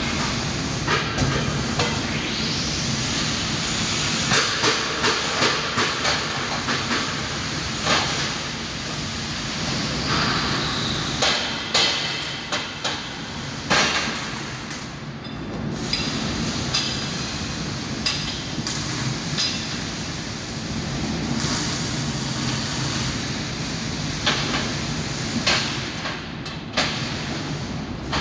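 Metalworking factory floor noise: a steady hiss and hum with frequent sharp metal clanks and knocks as steel parts are handled and struck.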